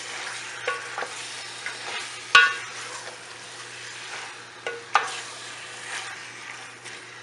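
Small pieces of beef sizzling as they brown in oil and spices in an aluminium pot, stirred with a wooden spoon. The spoon knocks against the pot now and then, sharpest about two seconds in with a short metallic ring, and again near five seconds.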